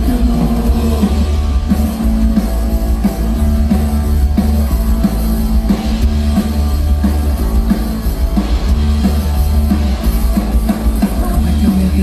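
Rock band playing live through the PA at a soundcheck: electric guitar, bass guitar and drum kit, loud and steady with a heavy low end.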